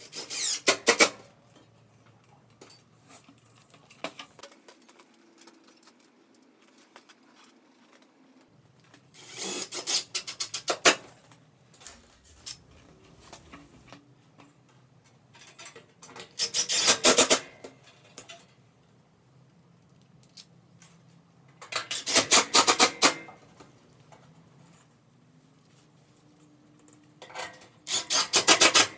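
Hand tool working on a fluorescent light fixture's wiring, making five rasping bursts of rapid clicks, each about a second long, with long pauses between.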